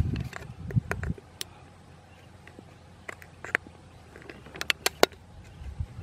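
Knife point tapping and punching into the top of an aluminium drink can, giving a scattering of sharp clicks and metallic taps, the strongest about five seconds in.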